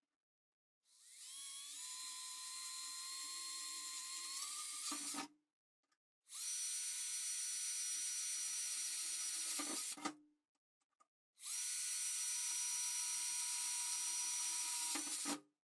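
Cordless drill boring holes through the thin sheet steel of a stove panel: three runs of a steady high whine, each about four seconds long, each starting and stopping abruptly.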